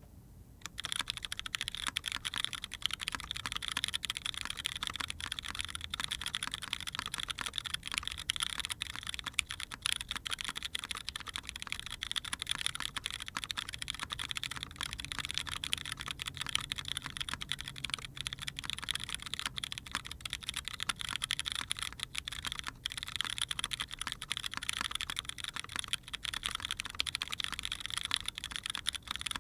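Continuous fast typing on a Keycult No.2 Rev 2 custom mechanical keyboard with a full aluminium plate, PBT keycaps and lubed, polished Cherry MX Brown (Hyperglide) tactile switches. A dense run of key clacks begins about half a second in and keeps up without pause.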